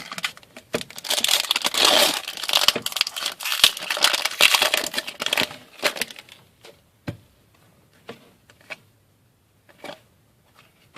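A trading card pack wrapper being torn open and crumpled, a dense crackling for about five seconds. After that come a few scattered light clicks and taps as the cards are handled.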